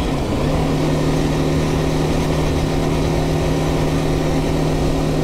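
BMW G310GS single-cylinder motorcycle engine running at a steady cruise on the highway. The engine note dips briefly right at the start, then settles and holds one even pitch.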